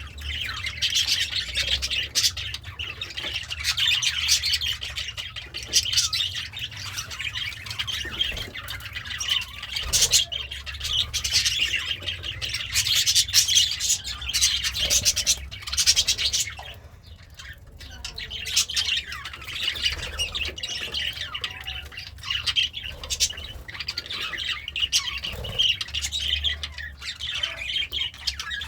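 Budgerigar chattering and warbling almost without a break, in rapid high chirps and squawky notes, with a short lull a little past the middle.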